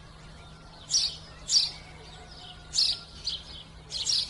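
Baby chicks peeping: five short, high-pitched peeps, mostly in pairs, over a faint steady hum.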